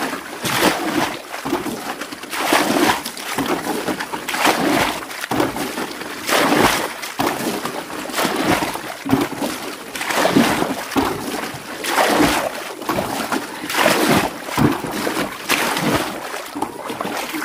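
Rainwater being bailed out of a small fishing boat: repeated scoop-and-throw splashes about once a second, with water sloshing in the hull.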